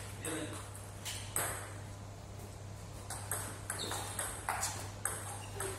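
Table tennis balls clicking off bats and tables in rallies, an irregular run of sharp pings that overlaps with play on neighbouring tables.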